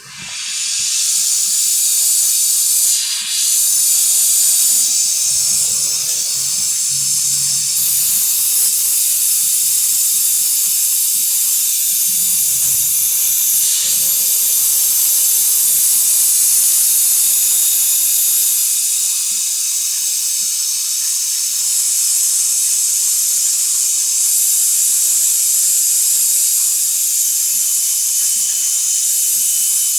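Steady, loud hiss of gas rushing out, strongest in the high treble, with a brief dip about three seconds in.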